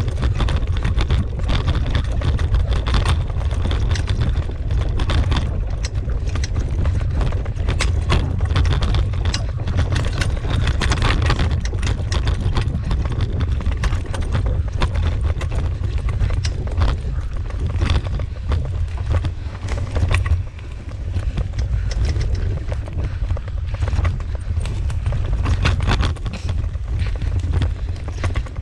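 Moving fast along a dirt trail behind a dog team: a rapid, uneven clatter of footfalls and knocks over a steady low rumble of wind on the microphone.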